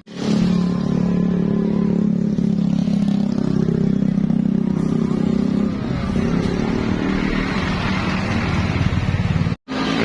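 Motor vehicle engine running close by as it passes, a low steady drone that shifts in pitch about six seconds in. The sound cuts out abruptly near the end.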